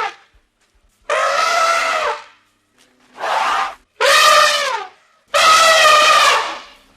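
Elephant trumpeting: four loud, high, brassy calls, each half a second to a second long, with short gaps between them; the last is the longest.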